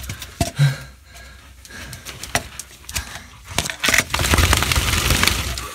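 Scuffling and scraping on rock and loose dirt in a tight cave crawlway: scattered knocks and rustles, then about four seconds in a loud, rough scrabbling close to the microphone as the dog scrambles past, kicking down dust.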